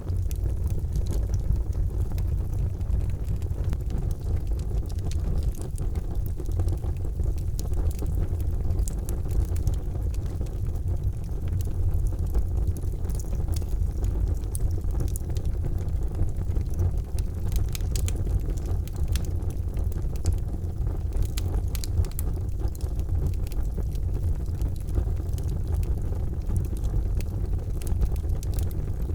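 Charcoal fire burning in a fireplace: a steady low rumble of the fire with many scattered sharp crackles and pops, thickest in the middle stretch.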